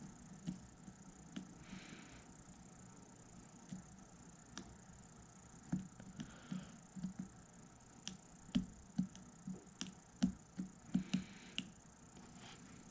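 Hand carving knife scraping and picking bark off a Shimpaku juniper trunk to carve a shari: faint, irregular small clicks and taps with a few short scrapes, the clicks coming more often after about five seconds.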